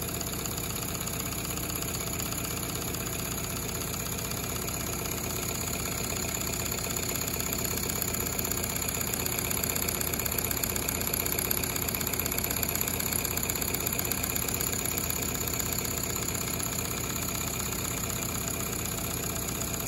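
Accucraft Ruby G scale live steam locomotive running on compressed air with its wheels spinning free: a rapid, steady chuffing from the cylinders' air exhaust, a little louder midway.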